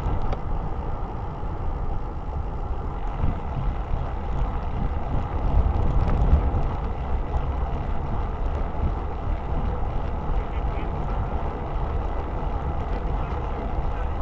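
Wind buffeting the microphone of a bicycle-mounted camera while riding, a steady low rumble mixed with tyre and road noise.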